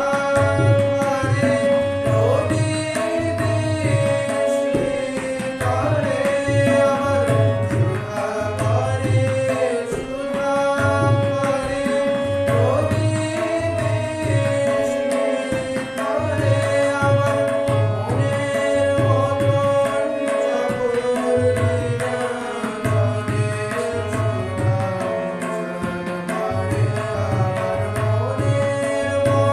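Devotional kirtan: a tabla pair and a harmonium accompany a man singing. The tabla's deep bass drum strikes in a steady repeating cycle under long held harmonium notes and the sung melody.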